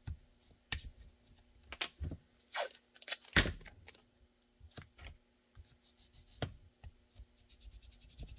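Blue painter's tape being pulled and pressed down by hand to hold foam blocking on a pistol mold: irregular scratches and light clicks of handling, with two longer tape rasps in the middle, the loudest.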